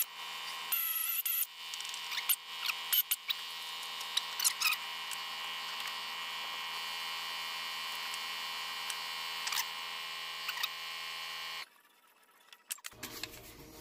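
A steady electrical hum with a few light, irregular clicks of a socket and extension on steel bolts; the hum cuts off suddenly near the end.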